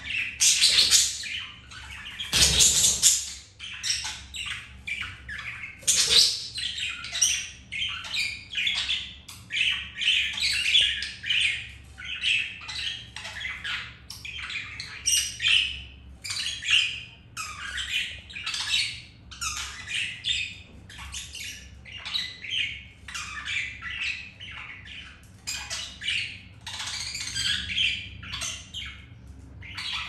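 Budgerigars chattering: a fast, unbroken run of short chirps and squawks, with one louder burst about two and a half seconds in.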